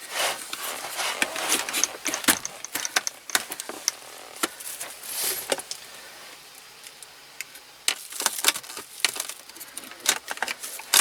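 Centre-console trim in a car interior being pried out with a hand tool: irregular sharp clicks, taps and short scrapes of plastic and metal, busiest in the first couple of seconds and again near the end.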